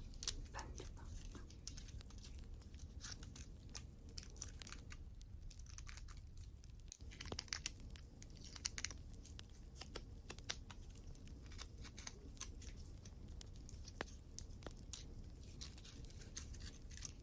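Wood fire crackling, with many small sharp pops and snaps scattered irregularly over a steady low hiss.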